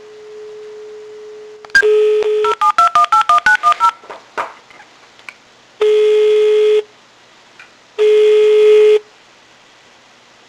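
Telephone line tones: a steady dial tone, then a number keyed in as about a dozen quick touch-tone (DTMF) beeps, then two one-second ringing tones as the call goes through.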